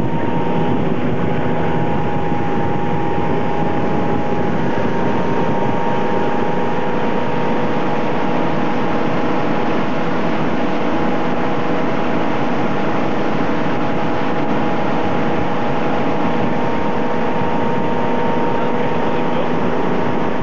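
Motorboat engine running steadily at speed while towing two water skiers, heard from aboard the boat: a constant hum with a rush of wind and water.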